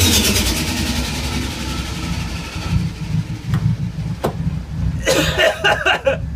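Nissan Skyline R32 GT-R's twin-turbo straight-six coming off a burnout: the loud spinning-tyre and high-rev noise drops away at the start and the engine settles to a low, steady idle rumble. Two sharp clicks come in the middle.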